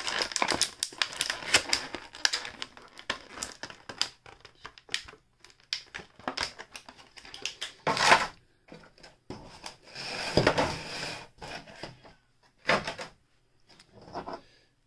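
Clear plastic bag crinkling as an action figure is worked out of it: a dense run of crackles for the first few seconds, then scattered crinkles with a few louder bursts of handling noise around the middle and near the end.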